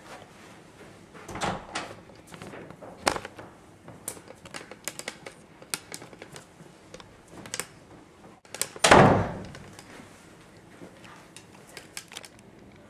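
Irregular clicks and knocks indoors, with one loud, heavy thump about nine seconds in.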